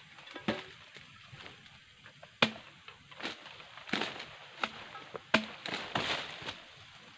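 Long-handled oil palm harvesting chisel (dodos) chopping into the frond and bunch stalks of a low palm: a series of sharp chopping strikes about a second apart, the loudest two about two and a half and five and a half seconds in.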